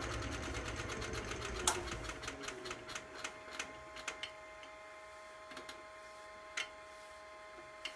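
Wood lathe spinning down with a freshly rounded mahogany blank: its hum falls in pitch and fades over the first two or three seconds while a rapid ticking slows and thins out to occasional clicks. A faint steady whine remains.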